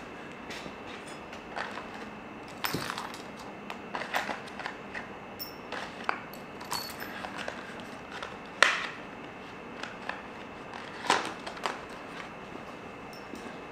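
Scattered clicks, knocks and clinks of small metal hardware and tools being handled while fitting a hand-truck wheel, some with a short metallic ring. The loudest knock comes a little past halfway.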